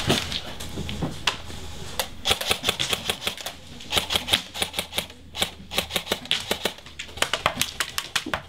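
Airsoft guns firing in bursts of sharp, rapid clicks, with runs about two, four and seven seconds in.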